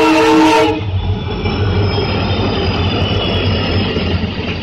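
Multi-tone horn of an Indian Railways diesel locomotive, which cuts off within the first second. Then the deep engine rumble and wheel noise of several diesel locomotives running past, hauling a long container freight train.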